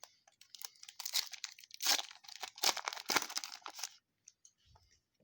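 A foil trading-card pack wrapper being torn open and crinkled in the hands, a dense crackling rustle for about four seconds that stops abruptly.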